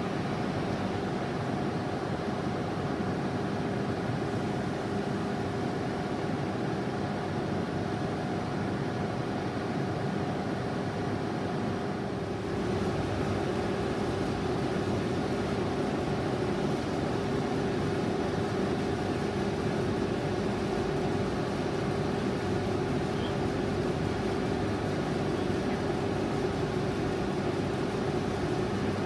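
CKD Blansko twin-column vertical lathe running with its large faceplate table turning, a steady machine hum with a pair of constant tones that gets louder about twelve seconds in.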